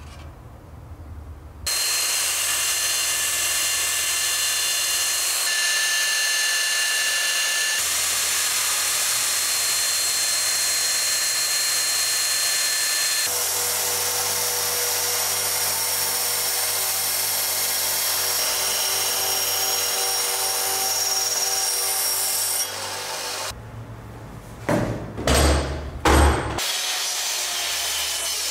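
Small belt grinder running steadily as a steel axe head is pressed against the moving belt and ground, throwing sparks. Near the end a miter saw starts up in a few loud swells and then cuts into a wooden beam.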